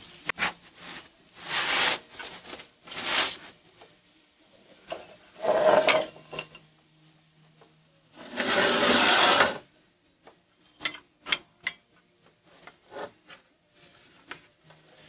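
Cookware being handled in a wood-fired pizza oven: several rasping scrapes of a pan against the oven floor, the longest about two thirds of the way through, then a run of light clicks and knocks.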